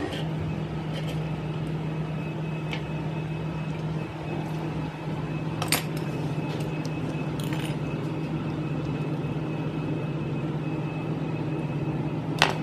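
A steady low machine hum with a faint high whine over it, broken by a few sharp clicks and clinks.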